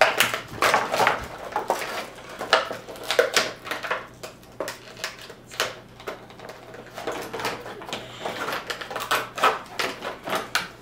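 Plastic toy packaging being worked open by hand: irregular crinkling, crackling and clicks.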